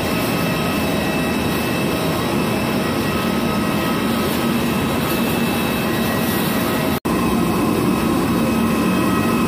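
Steady jet aircraft noise on an airport apron: an even roar with a constant whine running through it. It drops out for an instant about seven seconds in.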